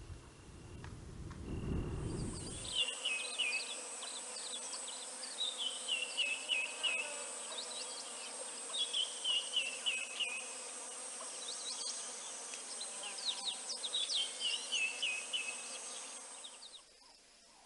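Bush ambience: a steady, high-pitched insect drone, with a bird repeating a short run of falling notes every few seconds. A low rumble fills the first two or three seconds, and the insect drone stops near the end.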